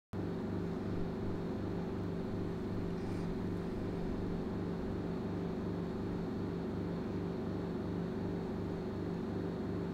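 Steady low hum made of several held tones with a faint hiss above them, cutting in abruptly at the start.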